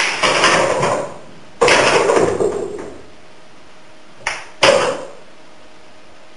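Pool cue striking the cue ball, then a quick flurry of billiard balls clacking together and rattling into the pockets. A second flurry starts about a second and a half in and fades out, and two sharp clacks follow a little after four seconds.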